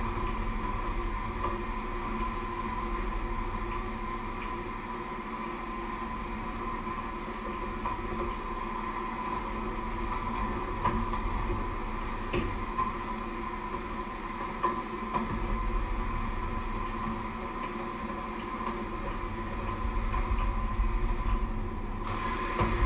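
Electric hand mixer running steadily, its beaters working in a metal bowl, with a few light clicks.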